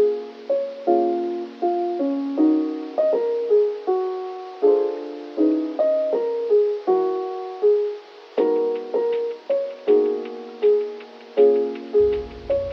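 Background piano music: gentle chords and melody notes struck about once or twice a second, each ringing away before the next.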